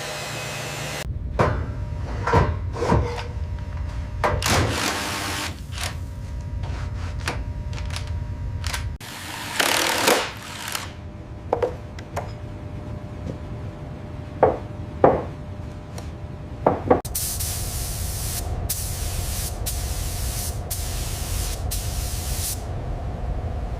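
Hand-tool and metalwork sounds over a steady low machinery hum: scattered clinks and knocks. There is a longer hiss about ten seconds in, and a run of short hissing bursts near the end.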